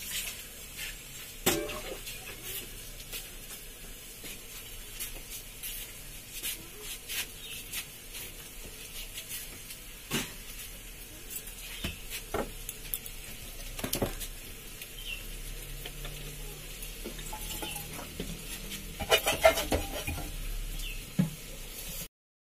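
Metal utensil stirring a thick grated-radish curry in a steel pan, with scattered clinks and scrapes against the metal and a quick flurry of them near the end.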